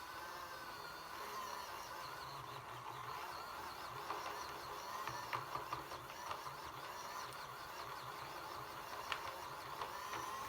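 Small electric motor of a mini makeup brush washing machine running steadily with a slightly wavering whine as it spins a makeup brush in soapy water, with scattered light clicks.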